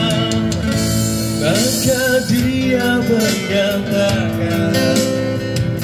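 Live pop ballad from a small band: a man singing, with held and gliding notes, over strummed acoustic guitar, keyboard and bass guitar, all amplified through PA speakers.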